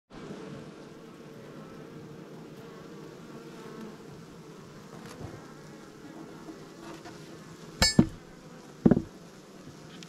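Honeybee colony humming steadily in an opened wooden hive box. Near the end come two loud knocks about a second apart, the first one sharper.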